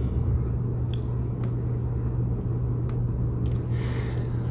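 Steady low hum and rumble, with a few faint clicks.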